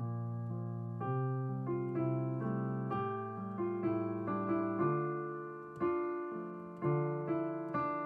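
Slow instrumental background music: single notes and chords are struck, left to ring and fade, and a new one comes in about every second.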